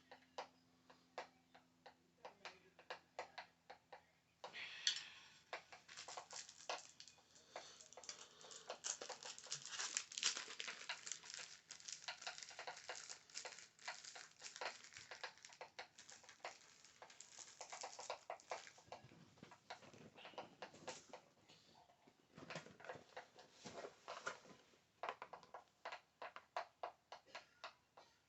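Quick, soft ASMR tapping on a small object, the taps coming thick and fast for much of the middle stretch and thinning out into separate taps near the end.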